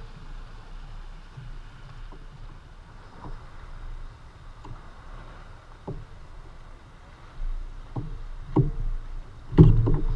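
Water lapping against a plastic sit-on-top fishing kayak, with a low steady rumble and scattered knocks on the hull, one of them louder near the end.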